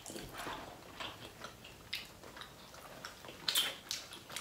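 Close-miked mouth sounds of eating: chewing and small wet clicks of a burger and fries meal, with one louder click a little past three and a half seconds in.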